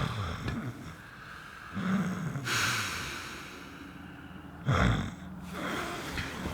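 A man snoring loudly in his sleep: a pitched snore that falls in pitch about two seconds in, a breathy exhale after it, and a short, sharp snort a little before five seconds.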